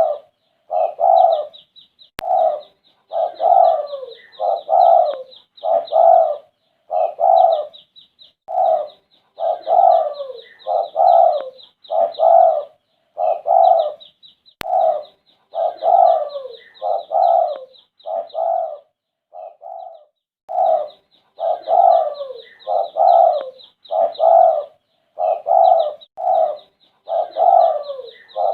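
A derkuku dove cooing over and over, about one coo a second with a short pause a little past the middle. Fast, high chirping from another bird runs alongside.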